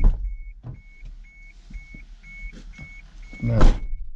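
A car's warning beeper sounding a short high beep about twice a second, steady and unchanging. A knock comes at the start, and a louder short noise comes about three and a half seconds in.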